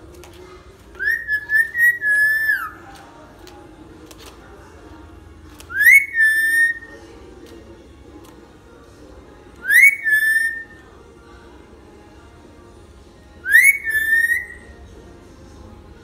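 Lory (nuri) giving loud whistled calls four times, about every four seconds. Each call is a quick rising note that levels off into a held whistle.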